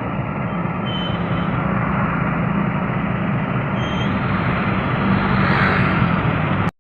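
Loud, steady rumble of a train running past, slowly building, cut off abruptly near the end.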